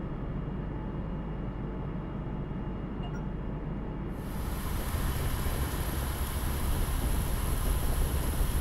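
Mercedes-Benz truck driving: a steady low road and drivetrain rumble heard from inside the cab. About four seconds in it switches to the truck heard from outside on the road, louder, with more low rumble and a thin high steady tone.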